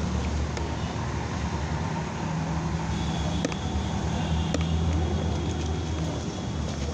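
Steady street traffic rumble from passing and idling vehicles. A few sharp clicks come through in the middle, from a spoon stirring puffed rice in a plastic cup.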